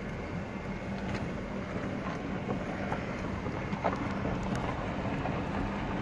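Car driving slowly on a gravel dirt road, heard from inside the cabin: steady engine and tyre noise, with a few faint ticks.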